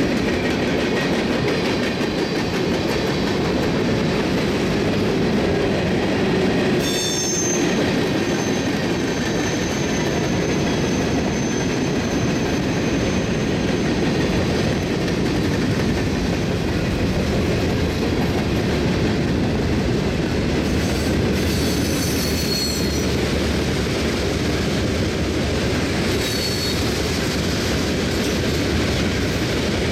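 Freight cars of a CSX mixed freight train rolling past close by: a steady heavy rumble of steel wheels on rail, mostly covered hopper cars. High, thin wheel squeals come and go several times.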